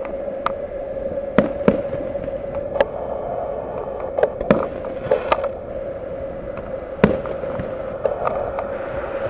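Distant fireworks: aerial shells bursting in an irregular run of sharp bangs and pops, the loudest about a second and a half in and again near seven seconds. A steady hum runs underneath.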